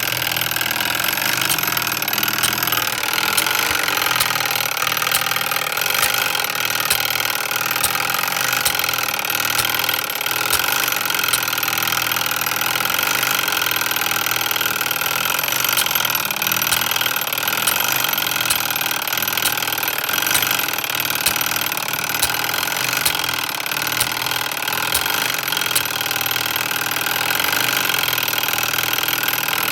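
Spring-wound clockwork code mechanism of a Samson No. 50 coded fire alarm pull station running after being tripped by its remote-release solenoid: a steady mechanical whirr with scattered sharp clicks.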